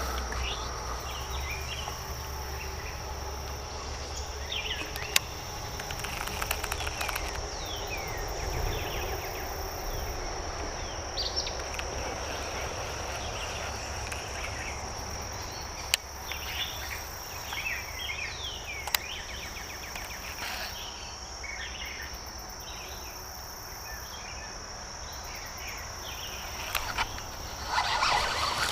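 Steady high-pitched insect drone from summer riverside insects, with short falling bird chirps scattered over it and a few sharp clicks. A louder rustling noise comes in near the end.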